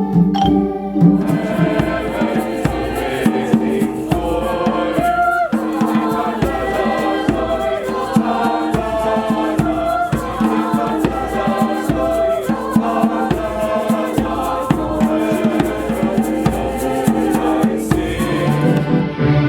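A choir singing a piece of music with accompaniment, many voices together; the music changes abruptly just before the end.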